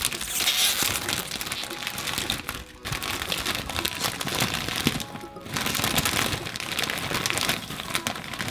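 Foil snack bag crinkling as hands pull it open and spread its top, with two brief pauses in the handling.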